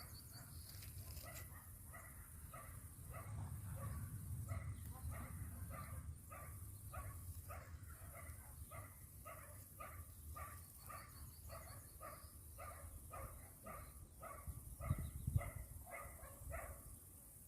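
An animal calling over and over in short, even calls, about two to three a second, over a low rumble, with a brief knock near the end.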